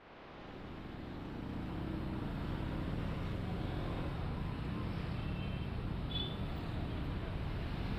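Steady city background noise with a low traffic hum, fading in over the first couple of seconds, with two faint short high chirps a little past the middle.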